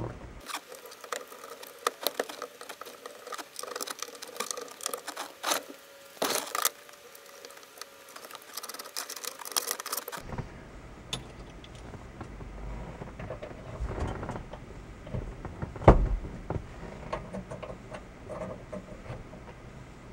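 Scattered small metallic clicks, taps and rattles of a car radio unit and its mounting hardware being handled and fitted back into a pickup's dash opening, with one louder knock late on.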